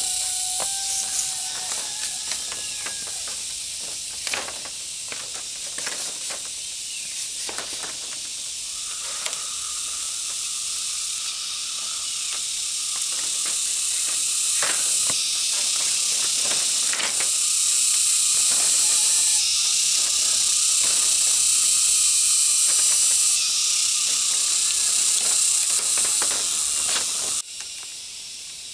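Steady high-pitched drone of insects that grows louder about halfway through, with scattered knocks and clicks. It drops off suddenly near the end.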